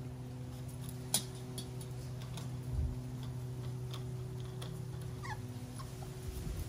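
A miniature Schnauzer puppy gives one short, high, falling whimper about five seconds in, over a steady low hum. A few light clicks sound now and then.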